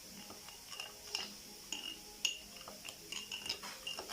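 A metal utensil stirring a garlic, honey and oil paste in a small dish, clinking lightly and irregularly against the dish a few times a second.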